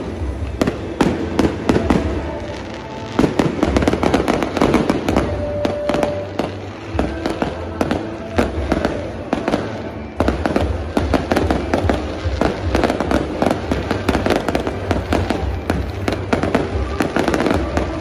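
Fireworks display going off in rapid succession: a dense, continuous run of bangs and crackling bursts.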